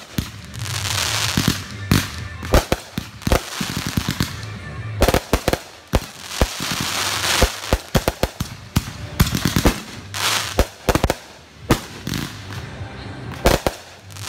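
Consumer aerial fireworks going off: clusters of sharp bangs from bursting shells, with hissing and crackling stretches in between.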